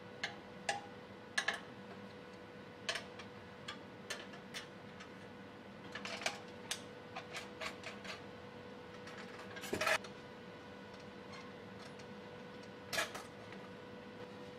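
Metal frame clamps being loosened and lifted off a wooden frame: scattered metallic clicks and clinks of the steel rods and corner blocks, with the loudest clatter about ten seconds in and another near the end. A steady hum runs underneath.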